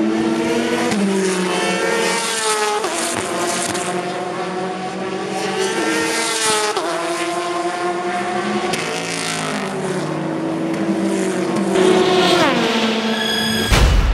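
Endurance race cars' engines accelerating out of a chicane, several at once, pitch climbing and dropping sharply at each gear change. Near the end a sudden loud boom with a deep rumble.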